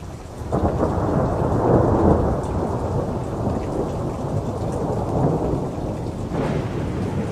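Thunderstorm sound effect: rolling thunder over steady rain, fading in over the first half second and swelling again about six seconds in.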